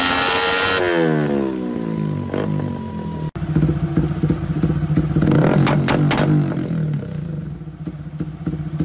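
Motorcycle engine on a dyno, heard close to its aftermarket exhaust silencer, winding down from high revs with a falling pitch. About three seconds in it cuts abruptly to another bike's exhaust running at raised revs, which then settle back toward idle near the end.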